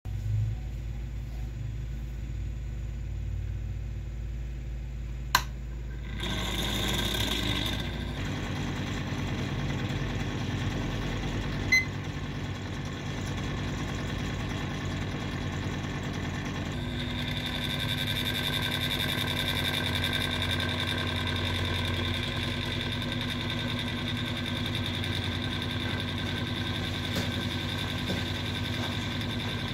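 Electric cotton candy machine's small motor spinning the heated head, a steady hum that grows fuller about 6 seconds in, with a higher whine joining about 17 seconds in. Two sharp clicks stand out, at about 5 and 12 seconds.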